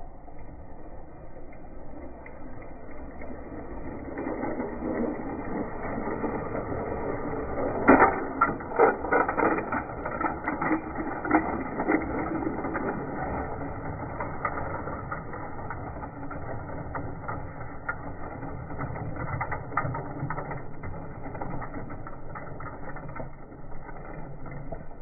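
LEGO train's plastic wheels and motor rattling along plastic track, played back slowed down. A dense run of irregular clicks and knocks comes in the middle as the cars pass.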